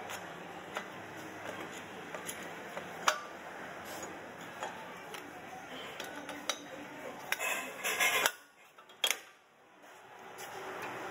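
Light metallic clicks and clinks as a brake caliper is handled and seated over the rotor onto its mounting bracket, with a sharper knock about three seconds in and a short run of clatter near the end.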